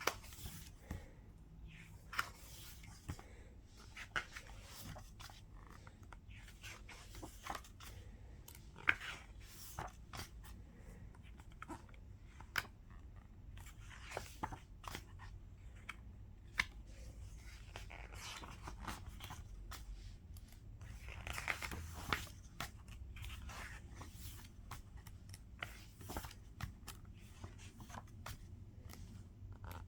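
Hands unpacking a K-pop album: paper and plastic rustling, with many scattered clicks and taps and a longer rustle a little past the middle.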